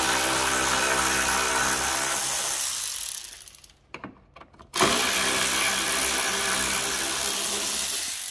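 Cordless power tool with a socket spinning off small nuts in two runs. Its steady motor whine fades out about three seconds in, then starts again with a quick rise in pitch about five seconds in.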